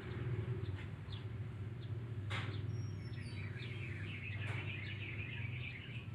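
A steady low hum runs throughout. Faint, high, chattering chirps come in about halfway and carry on to the end, with a couple of soft clicks.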